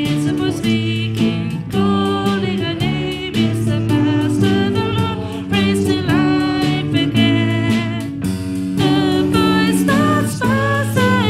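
A worship song sung with instrumental accompaniment: voices carry the melody over held chords and a steady beat.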